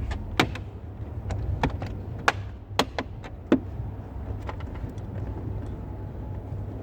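Plastic dashboard fascia trim clips snapping into place around the car's head unit: a series of sharp clicks, about seven over the first four and a half seconds, over a steady low hum.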